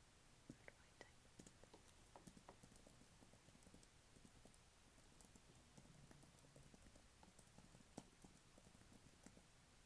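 Computer keyboard being typed on: faint, irregular key clicks, several a second.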